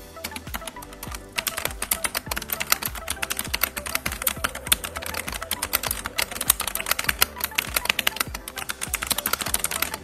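Fast, continuous typing on an NYK Nemesis Saber MKN-02 mechanical keyboard with red linear switches: a dense, uneven stream of key clacks, several a second.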